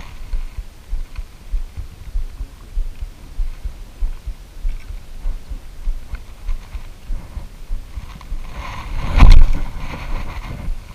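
Handling noise on a body-worn camera: irregular low thumps of a sleeve and hands brushing the microphone while fishing line is handled. About nine seconds in comes a single louder rustle and thump as the spinning rod is swung out in a cast.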